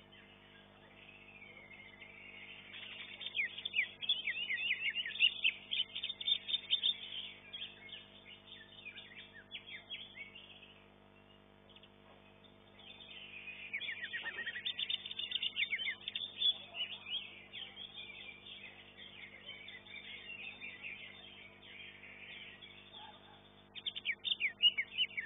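Greater green leafbird (cucak hijau) singing in long bouts of fast, high chattering notes, with quieter pauses between them, over a steady low hum.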